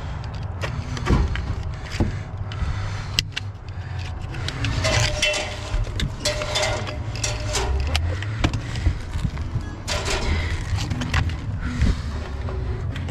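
Scattered clicks, knocks and scuffs of someone moving about on an asphalt-shingle roof while handling vinyl siding pieces, over a steady low rumble.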